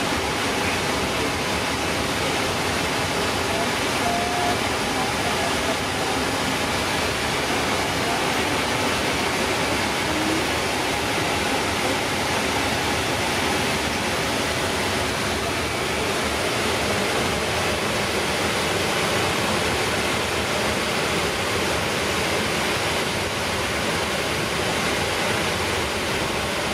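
Steady, even rush of flight-deck noise in a Boeing 777-300ER during ground movement: ventilation airflow over the hum of the idling engines.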